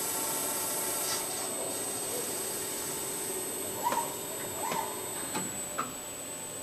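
Twin-disc crankshaft milling machine running, with a steady machine noise and a thin high whine as the toothed cutter discs work the crankshaft. Four short squeaks come in the second half, the loudest about four seconds in.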